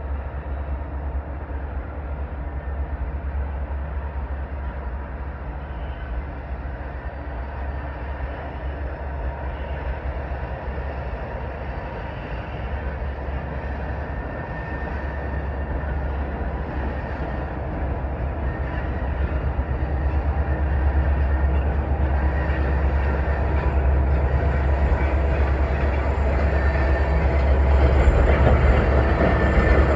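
Diesel locomotives of a freight train running with a steady low rumble, growing louder from about halfway through as the train comes closer.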